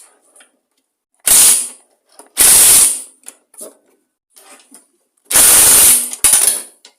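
Impact wrench with a 10 mm socket hammering in four short bursts, two close together near the end, on a bolt that will not come undone.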